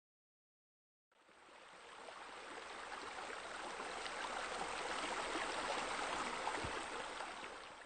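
Running water from a small waterfall, a steady rushing hiss that fades in about a second in and grows louder, with a short low bump near the end.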